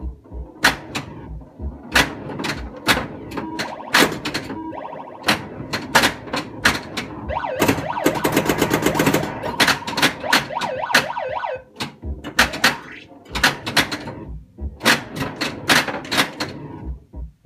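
Bally Space Invaders pinball machine in play: sharp solenoid knocks from flippers and bumpers come several times a second, mixed with the machine's siren-like electronic sound effects. About eight seconds in, a dense rapid run of knocks and tones lasts a second or two.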